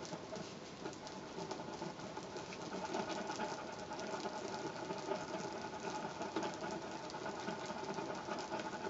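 Glue being stirred and mixed on a sheet of paper with a small hand tool: rapid, light scratching and scraping strokes.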